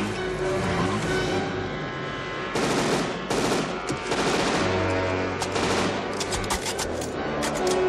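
Automatic gunfire from the snowmobile riders' weapons over a film score. Two heavy bursts come about a third of the way in, and a fast run of shots follows near the end.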